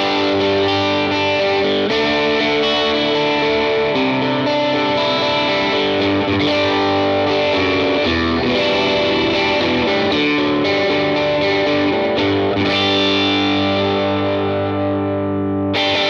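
Fender Telecaster played through a GizmoAudio Sawmill Jr. MOSFET overdrive pedal into a Vox AC15 2x12 amp, with the drive turned up and the bass-cut switch on. Overdriven electric guitar chords ring out at a steady level and cut off just before the end.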